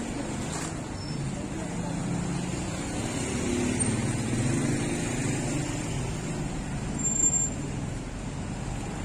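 City street traffic: cars running and passing on the road, a steady low rumble that swells about halfway through. A brief high-pitched chirp sounds near the end.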